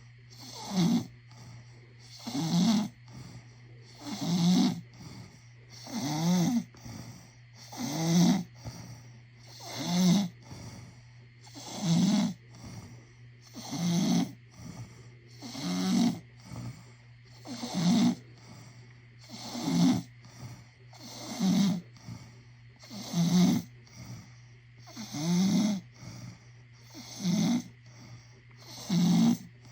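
A person snoring loudly and regularly, with a raspy, buzzing snore about every two seconds. A steady low hum runs underneath.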